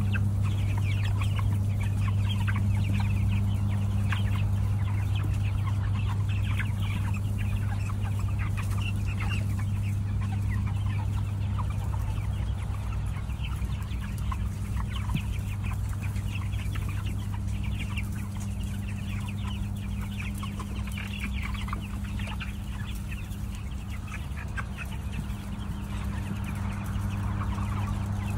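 A large flock of broiler chickens clucking continuously, many short calls overlapping, over a steady low hum.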